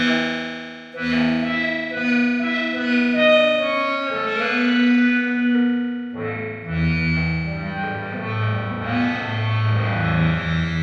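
Electric guitar played through the Earthquaker Devices side of the Time Shadows effects pedal: single notes struck and left to ring with long, effected sustain, with deep low tones joining in under them from about six seconds in.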